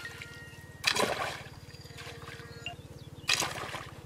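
Water splashing as a pole is swept through shallow muddy water, twice: about a second in and again a little past three seconds.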